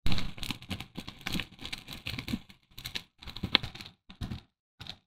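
Steaks searing on the grate of a charcoal kettle grill, sizzling with a dense run of irregular crackles and pops, loudest just at the start.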